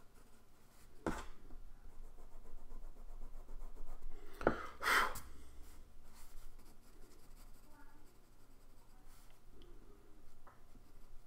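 Pencil shading on sketchbook paper: soft scratchy strokes, with a short louder scrape about a second in and a louder patch of rubbing around four and a half to five seconds in.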